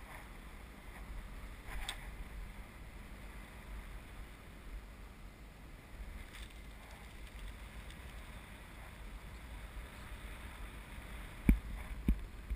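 Steady low wind rumble on the microphone of a camera riding on a parasail harness high in the air. Two sharp knocks come near the end.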